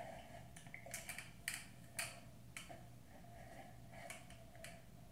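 Faint, irregular light clicks and brushing sounds from a hair straightener (flat iron) being clamped onto and drawn through hair. The clicks are bunched in the first two seconds, with a few more near the end.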